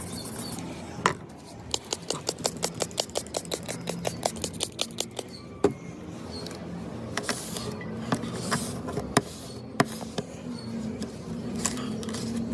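A quick run of sharp taps or clicks, about five a second for a few seconds, followed by a handful of separate taps.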